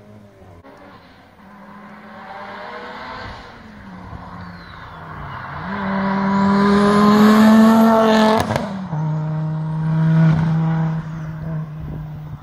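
Rally car engine revving hard as the car comes up the stage, rising in pitch and growing loud to a peak about eight seconds in. A sharp crack marks the shift up, and the engine then runs on at a steady lower pitch as the car carries on.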